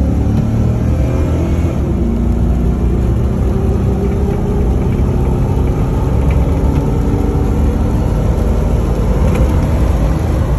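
2005 Chevy Silverado's 6.0-litre Vortec gasoline V8 accelerating hard under full throttle from about 30 to past 60 mph, heard from inside the cab. The engine note rises in pitch over the first couple of seconds.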